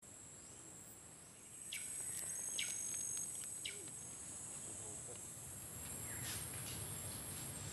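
Insects droning steadily in two high-pitched bands, with a few short bird chirps over them.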